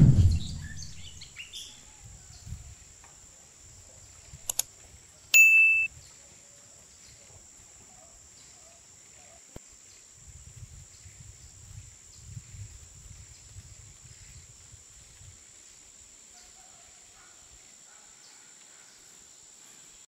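A loud low sound dies away in the first second. Then a click and a bright electronic ding from a subscribe-button animation come about four and five seconds in. After that there is quiet outdoor ambience: a steady high insect drone with occasional faint bird chirps.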